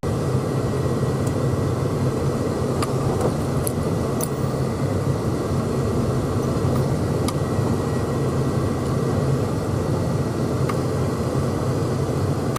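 Pickup truck driving, with steady engine and road noise heard from inside the cab.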